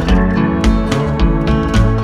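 Background music: strummed acoustic guitar in a country style, with a steady bass beat.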